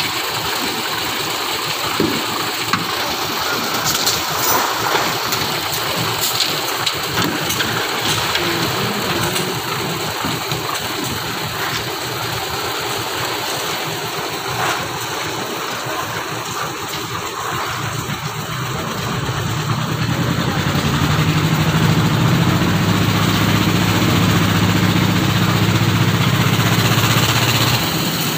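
Engine of a concrete mixer and bucket hoist running, with scattered knocks and rattles. About 19 seconds in, a steady low engine drone comes up louder.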